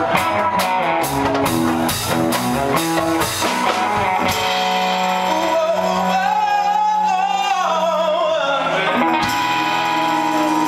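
Live rock band with electric guitar, drum kit and singing: drum hits under guitar chords for about four seconds, then a held final chord ringing out with a long sung note wavering in vibrato over it, as the song closes.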